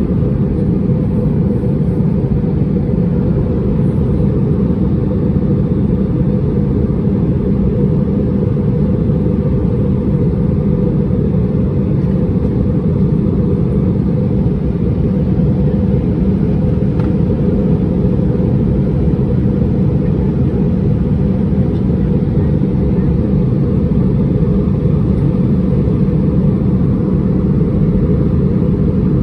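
Steady cabin noise inside an Airbus A320-231: an even, loud low rumble from its IAE V2500 engines and airflow, unchanging throughout.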